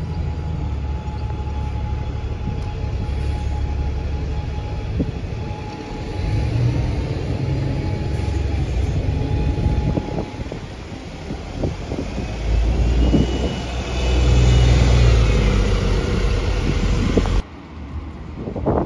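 Single-decker bus engine running with a low rumble as the bus pulls round and drives past close by, loudest as it passes. Cuts off abruptly near the end.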